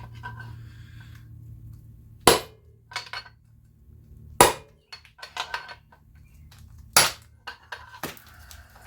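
Sledgehammer blows on metal while knocking a stuck part loose on a Tecumseh small engine: three hard strikes about two seconds apart, with lighter knocks between them.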